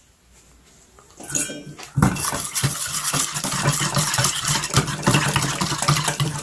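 Wire balloon whisk beating melted soap-base cream in a stainless steel bowl. It is a fast, continuous clinking and scraping of wire on metal that starts about two seconds in. The mix is being whipped with colouring toward a whipped-cream consistency.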